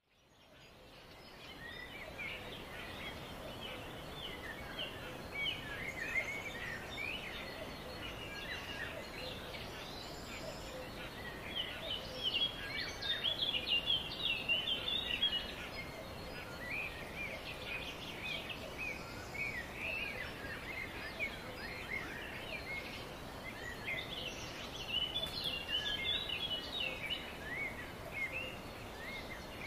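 Many birds chirping and calling over a steady outdoor hiss, fading in at the start and busiest about halfway through.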